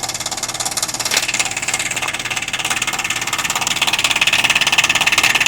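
Outdoor heat pump unit running with a loud, fast pulsing buzz and hiss that grows stronger partway through, with one click about a second in. The owner has been told the defrost cycle is making this noise.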